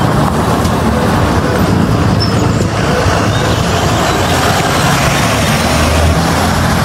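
Traffic noise with a yellow school bus's diesel engine running as it drives past. The low engine drone grows stronger about five seconds in.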